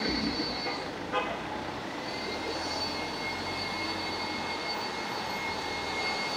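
Street ambience of city traffic, a steady hum of cars with a thin, steady high-pitched tone running through it and a short knock about a second in.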